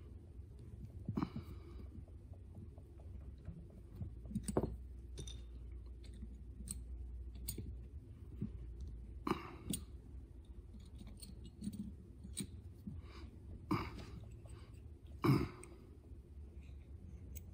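Light metallic clicks and scrapes from a hand-turned threaded brake relining rivet tool as a brake pad rivet is squeezed, with a few sharper clinks, the loudest about fifteen seconds in.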